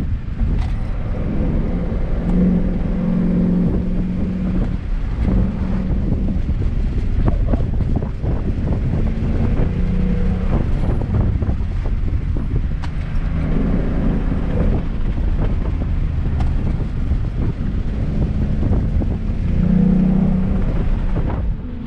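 Car engine heard from the car while driving hard on a winding road, its note swelling and easing off several times as the driver accelerates and lifts, over steady road rumble and wind noise.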